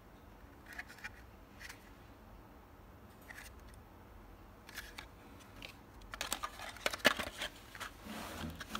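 Handling noise from a plastic-cased Siemens ET 200S power module: a few light clicks and taps as it is turned in the fingers, then a flurry of clicks and cardboard rustling as it is slid back into its cardboard box, the loudest click about seven seconds in, ending in a short scrape.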